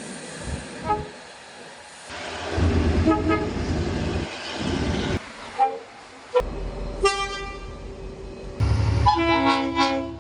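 Train horns sounding a series of short blasts, the loudest a chord of several notes near the end, over the rumble of trains running past. The sound jumps abruptly a few times where separate recordings are cut together.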